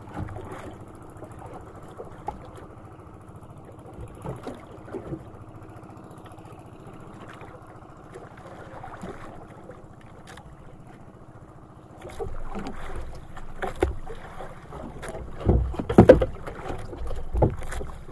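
Steady wind and sea noise aboard a small outrigger fishing boat, with a faint steady hum. About two-thirds through it gets louder and rougher, with several heavy low thumps near the end.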